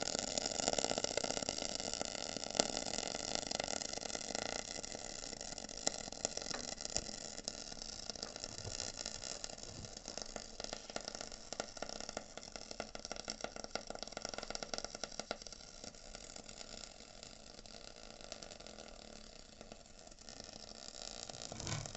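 Crackling, sizzling and clicking from the dry heating-element flask of a Koln 80-litre electric water heater, fading away gradually once power to the elements is cut. The owner attributes the crackling most likely to a fully consumed anode.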